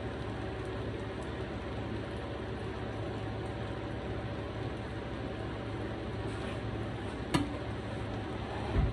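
Steady sizzling of food frying in pans on a gas stove, with a sharp click about seven seconds in and a low thump near the end.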